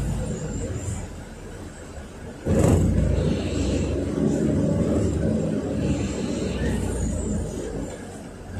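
Running noise inside a NEFAZ 5299 city bus on the move, its Mercedes-Benz M906 LAG compressed-natural-gas engine and the road giving a steady low rumble. The rumble drops away for a second or so, then comes back suddenly with a sharp knock about two and a half seconds in.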